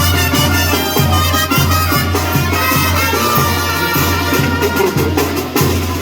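A Mexican banda, a brass and percussion wind band of children, playing a lively tune with a steady pulsing low bass line and percussion strokes.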